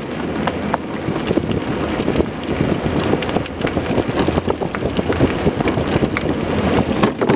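Soapbox car rolling over asphalt, its wheels and chassis rattling and clattering steadily, with wind on the microphone.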